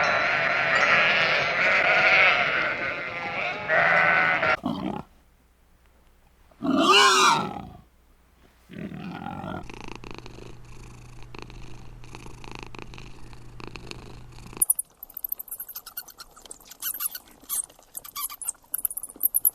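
Farm animal calls: a loud stretch of several overlapping calls for about five seconds, then a single call with a bending pitch and a shorter one after it. After that comes a steady low hum and, near the end, scattered sharp clicks and knocks.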